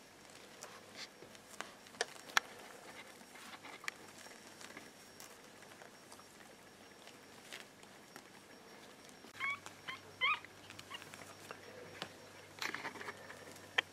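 Newborn puppies squeaking: a quick run of about four short, high squeaks about two-thirds of the way through. Scattered small clicks and a patch of rustling from the puppies shifting on the plastic-lined bedding run through the rest.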